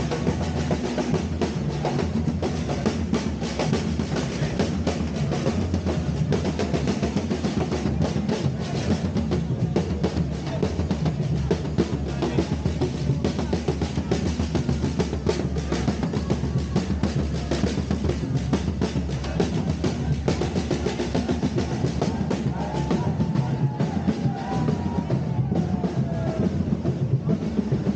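A street drum group playing a steady, driving rhythm on bass and snare drums.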